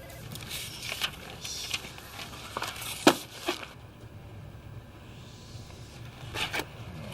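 Quiet room tone with a steady low hum and scattered small clicks and rustles of handling, the sharpest a knock about three seconds in and two more a little after six seconds.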